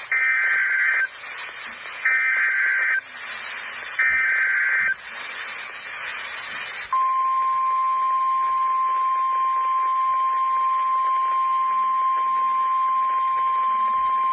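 NOAA Weather Radio emergency alert signal: three loud one-second bursts of SAME digital header data a second apart, with radio hiss between them, then the long, steady, single-pitch Weather Radio warning alarm tone starting about seven seconds in.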